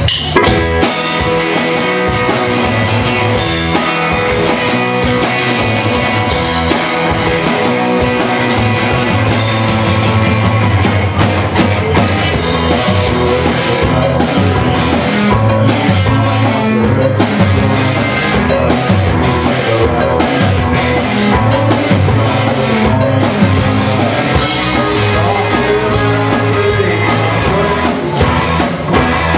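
Rock band playing live, loud and steady: distorted electric guitars over a drum kit keeping a regular beat.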